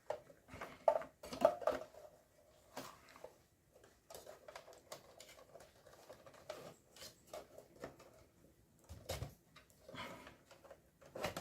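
Scattered clicks and knocks of metal and plastic as a desktop computer's power supply is released from its latch lever and slid out of the case.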